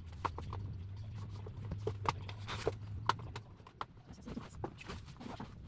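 Irregular light clicks and knocks of plastic fan parts being handled during cleaning, over a low steady hum that fades out a little past halfway.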